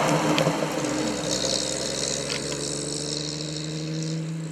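Sunbeam Speed 20 Monte Carlo's 2.9-litre straight-six engine running as the car drives past, loudest at the start and fading steadily as it moves away, leaving an even engine hum.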